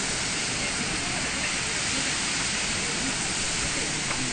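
Typhoon wind and rain making a steady rushing hiss, with no let-up.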